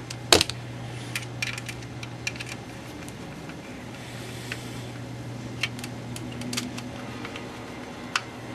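Small screws dropped into place and handled on a plastic P90 box magazine: a sharp click just after the start, then scattered light clicks and taps, over a steady low hum.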